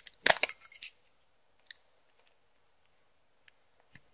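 A quick clatter of small hard clicks, then a few faint separate ticks: small hard objects knocking against each other or a container.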